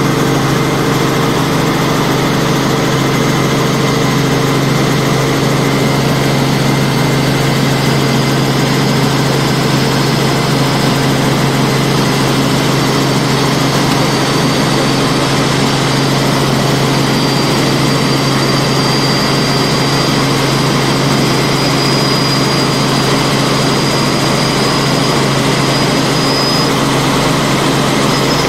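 Robinson R44 helicopter in steady cruise, heard inside the cabin: its six-cylinder Lycoming piston engine and rotors make a constant loud drone. A thin high whine comes in around the middle and holds through the second half.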